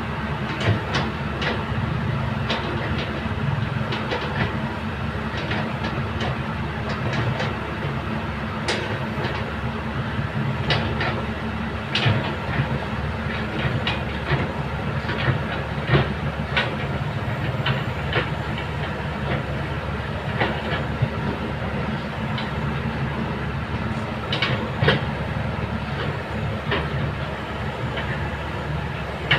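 Kobelco excavator's diesel engine running steadily under work, with frequent irregular metallic clanks and knocks from the machine and its work, the loudest about twelve, sixteen and twenty-five seconds in.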